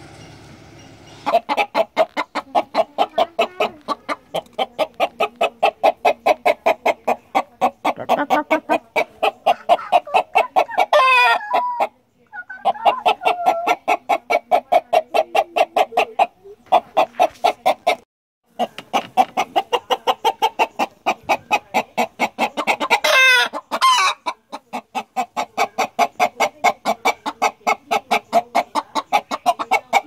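Chickens clucking rapidly in a fast, even run of several clucks a second, broken by a few short, higher, wavering squawks. The sound cuts out abruptly a few times.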